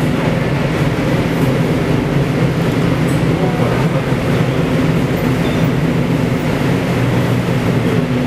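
Heavy machinery in a tunnel construction site running with a steady, loud drone. Several low hums hold constant pitch throughout.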